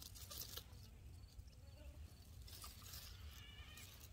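Near silence with a faint low rumble; about three seconds in, a faint bleat from livestock.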